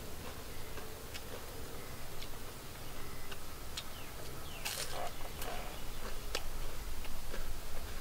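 Someone eating crisp deep-fried battered food: scattered sharp crunching clicks, with a louder burst of crunching about five seconds in.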